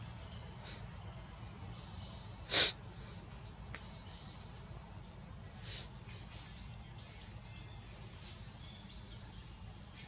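Forest ambience: a steady low rumble with faint high bird chirps. It is broken about two and a half seconds in by one short, sharp, loud burst of breathy noise, and a fainter one comes near six seconds.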